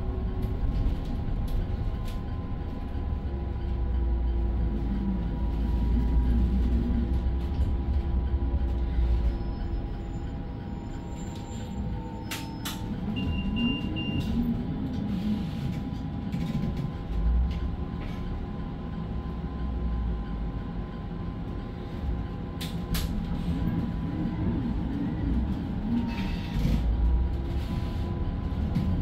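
Cabin noise of the Apollo 1100 self-driving bus under way: a low road rumble that swells and eases, with a steady whine running through it. A short high beep sounds a little under halfway through, and there are a couple of sharp clicks.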